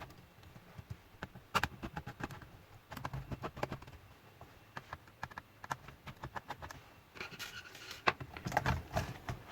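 Small hand tools working on a laptop's plastic body: irregular light clicks and scraping as the keyboard's screws are taken out, getting busier in the last couple of seconds.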